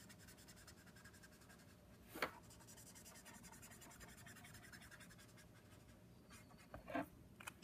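Copic alcohol marker's brush nib stroking quickly across cardstock, a faint rapid scratching, with a light tap about two seconds in and another near the end.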